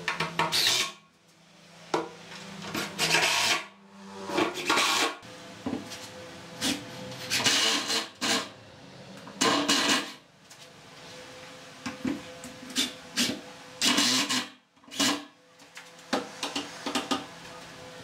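Wooden boards being handled and shifted against one another: an irregular run of short scraping, rubbing and knocking sounds.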